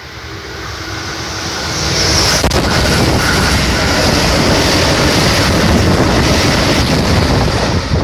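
Keikyu 2100-series express train passing through the station at about 120 km/h. A rush of noise builds over the first two seconds as it arrives, then holds loud and steady: wheels on rails and the train's wind blast buffeting the microphone.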